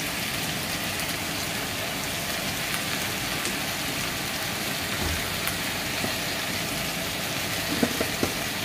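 Diced chayote squash sizzling steadily in a frying pan with a little oil, with a few light clicks near the end.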